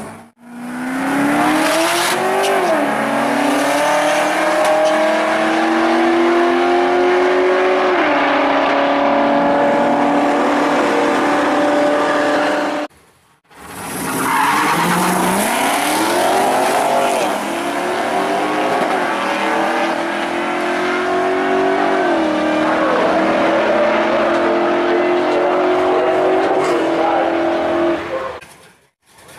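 Street cars at a drag strip revving hard and holding high revs for several seconds, with tyre squeal. The sound cuts out briefly about halfway through and then picks up again with the same kind of engine and tyre noise.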